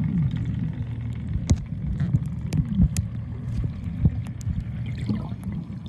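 Muffled underwater sound picked up by a camera under the sea: a steady low drone with many scattered sharp clicks and crackles.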